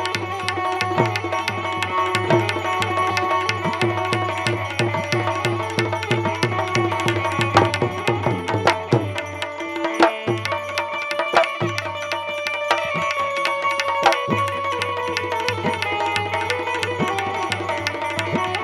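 Instrumental Indian folk music: a hand drum keeps a quick, even rhythm under steady sustained melody tones. The low drum strokes drop out for a moment about halfway through, then resume.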